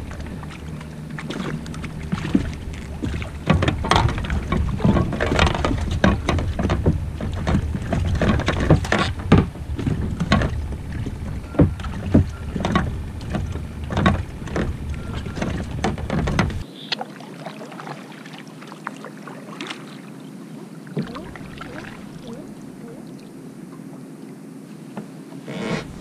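Irregular knocks, clatters and rustling from a catch of mackerel and fishing tackle being handled on a plastic fishing kayak. About two-thirds of the way through it drops abruptly to a quieter stretch with only occasional clicks.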